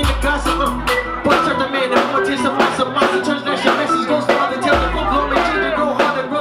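Hip-hop music played loud through a club sound system: a drum beat with deep bass notes that drop out for a few seconds in the middle, and a performer's vocals through a handheld microphone over it.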